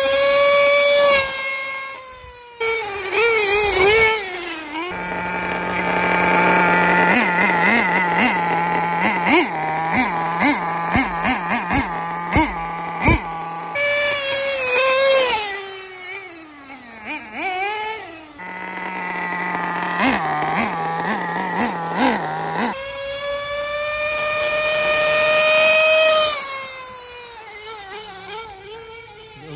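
Tamiya Nitrage's FR-32FX 5.2cc two-stroke nitro engine running at a high pitch, revving up and down, its pitch rising and falling several times.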